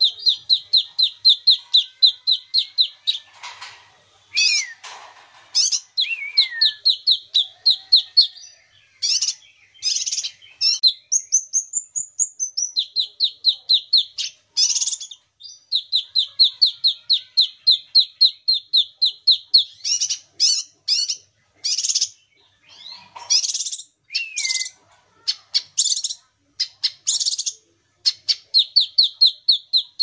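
A caged kinoi leafbird in full song: long runs of fast, even chirps, about five a second, broken by louder, varied notes and a short whistled phrase that rises and falls.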